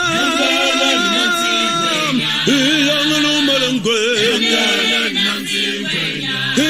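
Background music of chanted singing: voices holding long notes with a wavering pitch, several pitches at once, over a low steady drone.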